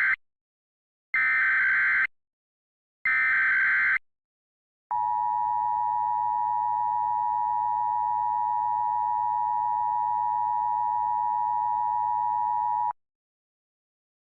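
Emergency Alert System SAME header: the end of one data burst and two more bursts of high digital tones, about a second each with short gaps, carrying an Emergency Action Notification code. Then the EAS two-tone attention signal (853 and 960 Hz) holds steady for about eight seconds and cuts off.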